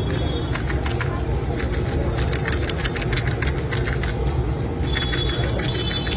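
Steady low rumble of street traffic, with many scattered clicks and crackles over it.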